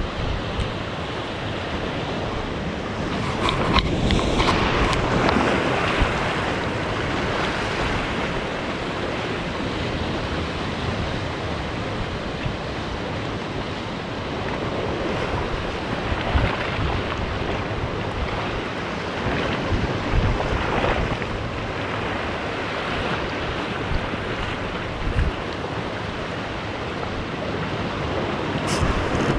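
Sea waves washing and breaking against a rocky shoreline, a steady rushing wash that swells louder a few times as bigger waves come in, with wind buffeting the microphone.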